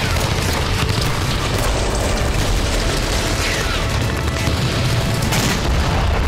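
Continuous low booming rumble of battle sound effects, like explosions and artillery, over a dramatic news music bed. A faint falling whistle comes about three and a half seconds in, and a sharp crack about five seconds in.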